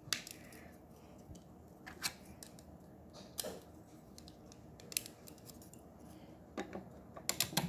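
Scattered sharp clicks of plastic Lego pieces being handled, about one every second or so, then a quick run of clicks near the end as hands work the model.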